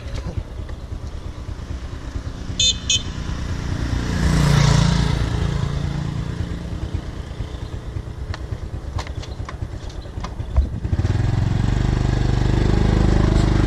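Motor scooter running under way, with two quick horn toots about two and a half seconds in. The engine gets louder from about eleven seconds in.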